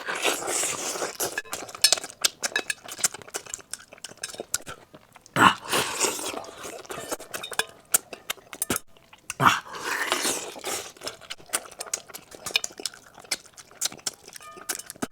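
Close-miked eating: many quick clicks and clinks of utensils against dishes, mixed with mouth sounds of eating, with a couple of louder bursts about five and a half and nine and a half seconds in.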